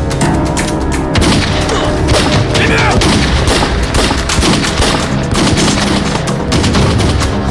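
Film battle soundtrack: dense, sustained gunfire of rifles and machine guns under a dramatic music score.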